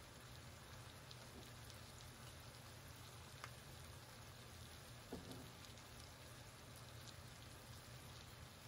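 Faint, steady sizzle of vegetables frying in the pan, with a few soft pops and a low steady hum underneath.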